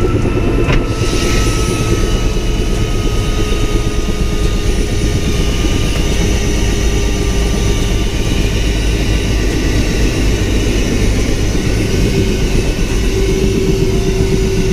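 Bell LongRanger II helicopter's turboshaft engine and main rotor running on the ground, heard from inside the cockpit: a loud, steady rumble with a steady turbine whine over it.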